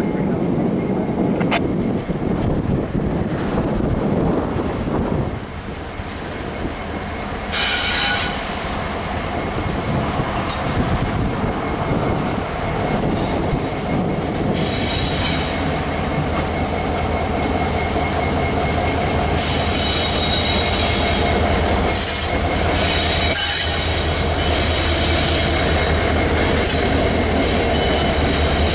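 Freight train behind a diesel locomotive rolling past on a curve, its steel wheels squealing against the rails in a steady high tone that grows stronger past the middle, with a few sharp hissing flares. From about two-thirds of the way in, a low steady rumble of the cars joins it.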